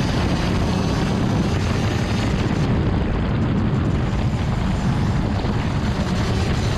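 Steady heavy rumble of a racing go-kart on track, as picked up by its onboard camera, with no clear engine pitch standing out.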